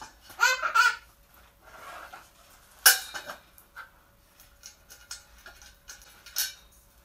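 Scattered clicks and knocks as parts of a digital piano are handled and fitted together during assembly; the sharpest knock comes about three seconds in. There is also a short high squeal just under a second in.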